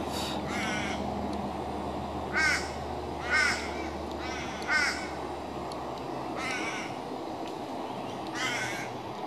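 A bird in the trees giving a series of short, harsh caws spaced irregularly a second or more apart, the loudest about two and a half, three and a half and five seconds in. Beneath them is a steady low rumble that fades out about two-thirds of the way through.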